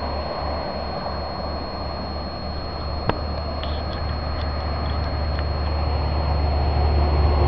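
Steady low rumble of wind on the camcorder microphone, with a faint constant high whine and one sharp click about three seconds in.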